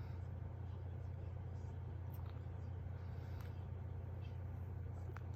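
Steady low background hum with a few faint small clicks and rustles.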